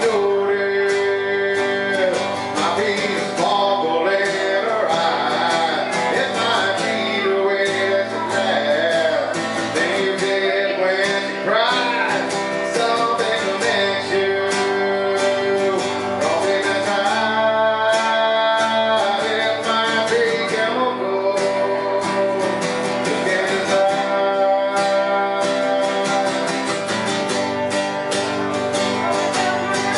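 Acoustic guitar strummed steadily, with a man singing over it, played live through a club PA.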